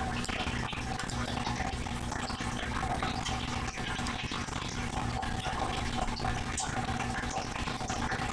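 Steady background hiss with a low electrical hum: room noise picked up by a webcam microphone.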